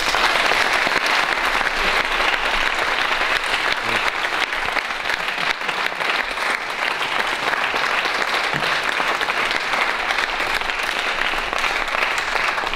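Steady applause from a small crowd of a few dozen people clapping their hands.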